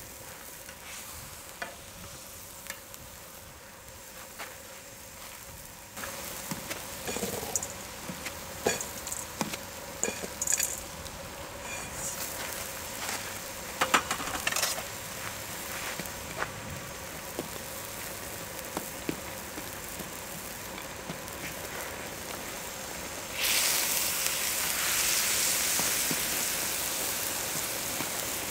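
Broth boiling and sizzling in a wide cast-iron cauldron-lid pan (sotttukkeong) over a fire, with scattered sharp clicks of metal tongs and chopsticks against the pan. The bubbling grows louder and denser for the last five seconds or so.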